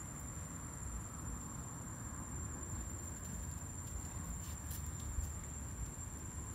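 Steady, high-pitched drone of insects over a low rumble, with a few faint ticks about four to five seconds in.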